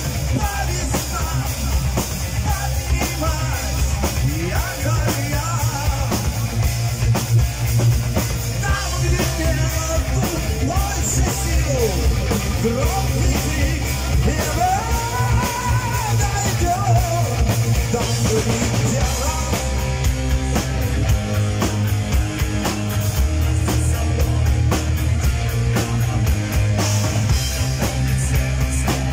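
Live heavy metal band playing: electric guitars through amplifiers, a Yamaha drum kit keeping a steady beat, and a male singer.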